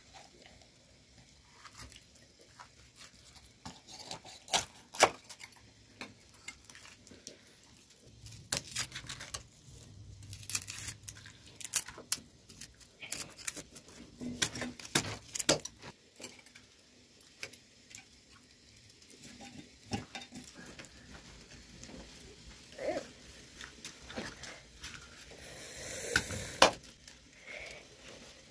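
Hand food preparation with knives: scattered sharp clicks, taps and scrapes of a knife blade against food and dishes, with quiet stretches between.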